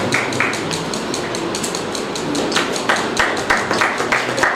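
Audience clapping in a steady rhythm, about three or four claps a second, thinning out about a second in and picking up again.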